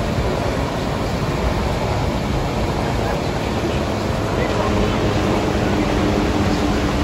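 The American Falls at Niagara heard at close range: a loud, steady rushing roar of falling water. A faint low steady hum joins it about two-thirds of the way through.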